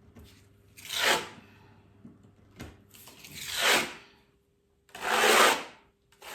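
Drywall knife drawing joint compound across a textured wall, four scraping strokes a second or two apart.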